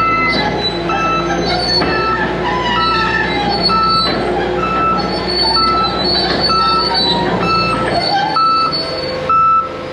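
Crawler dozer manoeuvring in a tight space: the diesel is running and the steel tracks squeal and clank. A backup alarm beeps steadily throughout.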